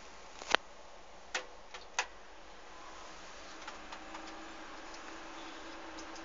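A PC making a faint, steady low buzz that sets in about two and a half seconds in and grows a little stronger, over a background hiss. A few sharp clicks come before it, the loudest about half a second in.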